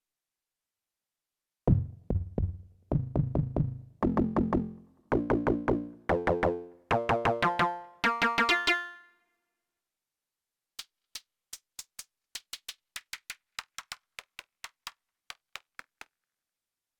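Fred's Lab Manatee synthesizer playing a preset: short, decaying plucked notes repeated quickly and climbing higher in pitch in steps for about seven seconds. After a short pause comes a run of thin, sharp clicks at an uneven rhythm.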